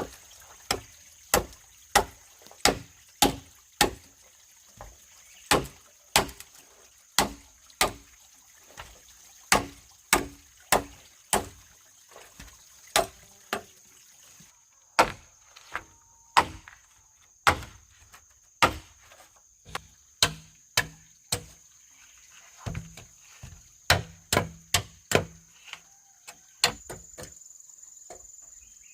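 Repeated chopping blows on wood, a sharp hit about every half second with a short pause about halfway and a longer one near the end. Crickets trill steadily in the background.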